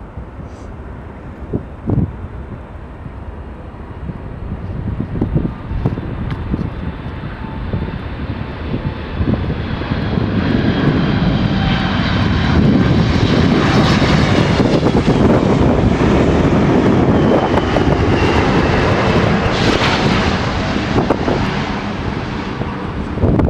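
Boeing 777 twin-engine jet passing close on its landing approach: the engine noise, with a high fan whine on top, builds over about ten seconds and holds loud before easing a little near the end, over gusty wind on the microphone.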